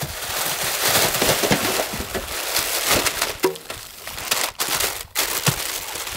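Dry plant material crackling, crunching and snapping in a dense, continuous run, with a few sharper snaps near the end.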